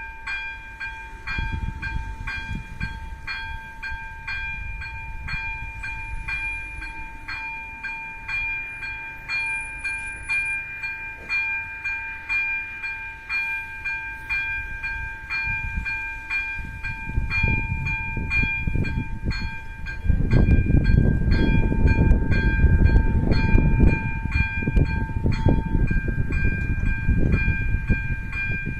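Level-crossing warning bell ringing with a repeated electronic ding, about two strikes a second. About two-thirds of the way in, a loud low rumbling noise swells up and drowns the lower tone of the bell.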